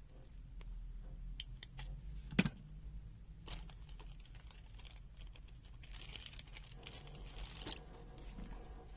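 Protective plastic film being peeled off a pen-type digital multimeter: faint crinkling with scattered small clicks, and a sharper click about two and a half seconds in.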